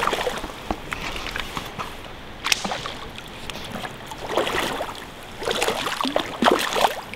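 A hooked rainbow trout splashing at the surface of a shallow creek as it is played toward the net, with water sloshing around the angler's wading legs. A sharp splash comes about two and a half seconds in, and more splashing follows in the second half.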